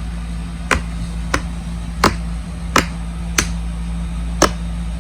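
Silicone pop-it fidget toy being pressed: sharp, loud pops, about six of them, one every half second to second.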